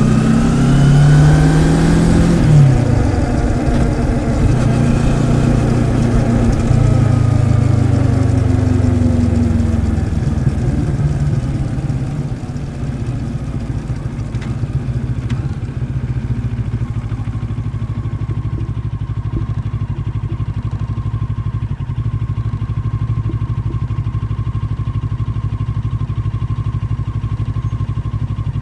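Moto Morini X-Cape 650's liquid-cooled parallel-twin engine revving up briefly under acceleration and holding speed, then easing off about ten seconds in and settling into a steady idle.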